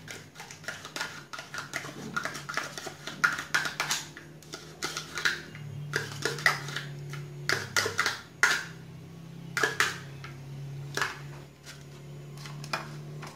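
Metal spoon scraping and clicking against a dessert pot and a ceramic bowl as chocolate dessert cream is spooned out: many short, irregular clicks and scrapes over a steady low hum.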